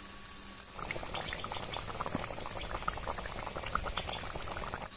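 Fish curry gravy boiling in a kadhai: a dense, irregular run of small bubbling pops that starts about a second in and stops just before the end.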